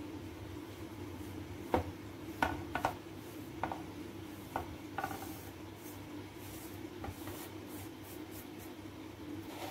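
Fingers scraping and gathering powdered spices across a ceramic plate, with a few short scrapes and taps in the first half, over a steady low hum.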